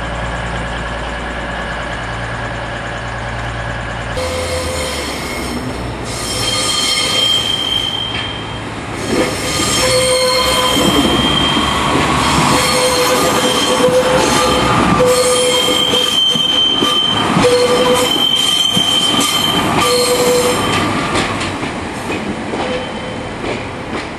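Steady low hum of an idling diesel train, then from about four seconds in a train's wheels squealing on curved track, high tones coming and going over a rumble, fading near the end.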